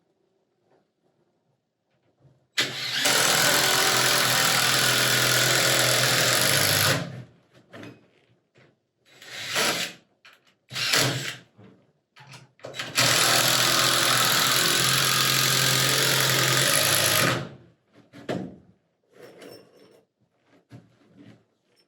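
Power drill driving long screws into a window frame: two long steady runs of the motor of about four seconds each, with a few short bursts in between and one more near the end.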